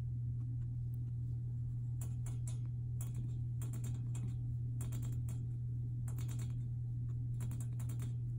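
Guinea pig at the bars of its wire pen making clusters of quick, small clicks and ticks, more frequent from about two seconds in, over a steady low hum.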